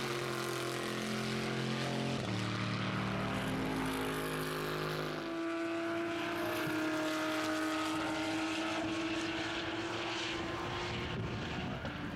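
Chevrolet Camaro GT3 race car's V8 engine at racing speed. Its pitch shifts a few times in the first five seconds, then it holds one long note that climbs slowly as the car accelerates.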